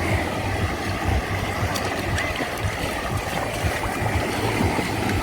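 Gentle sea waves washing and gurgling at the shore, a steady wash with a few faint ticks and a low hum underneath.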